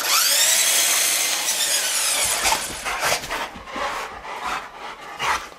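Remote control truck's electric motor revving with a high whine that rises at the start and falls away about two seconds in, then runs in short repeated bursts.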